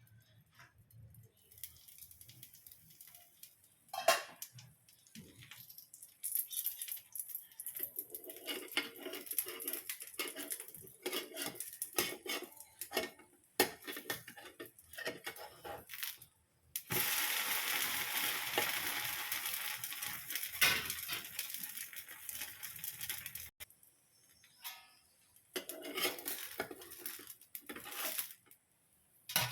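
Metal kitchen utensils clinking and scraping against cookware in many short, irregular strokes. A steady hiss lasts about six seconds just past the middle.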